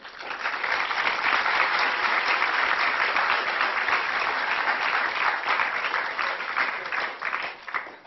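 Audience applauding, dense at first, then thinning to a few separate claps and dying away near the end.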